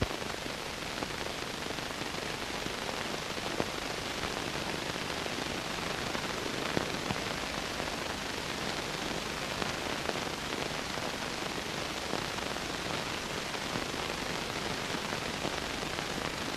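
Steady hiss with a few faint scattered clicks and crackles, the background noise of an old film soundtrack with no narration.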